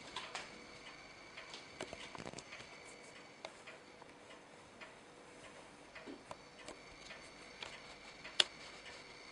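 Faint, irregular clicks and crackles of clear cellophane wrapping as a kitten moves among it, with one sharper click near the end.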